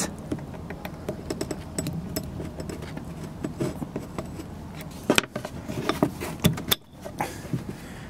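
Small metallic clicks and scrapes as a sliding cam-lobe piece on an Audi 2.0 TFSI camshaft is pushed along the shaft over its spring-loaded detent ball. A denser run of louder clicks comes about five to seven seconds in.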